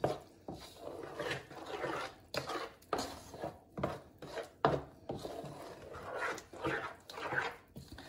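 A spoon stirring thick yogurt and spice marinade around a non-stick pan: repeated scraping strokes with a few sharper knocks against the pan.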